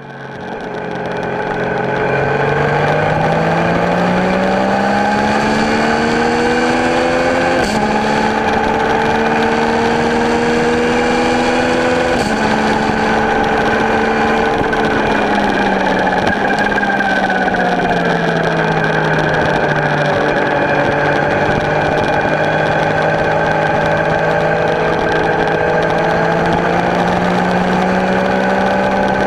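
Yamaha MT-09's three-cylinder engine through a custom full-system exhaust, heard on the move. The engine fades in, climbs in pitch under acceleration, holds, drops back as the throttle eases around the middle, then climbs again near the end.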